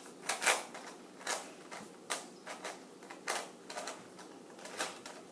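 A plastic Rubik's cube being turned quickly by hand, its layers snapping round in irregular clicks and clacks, about two a second.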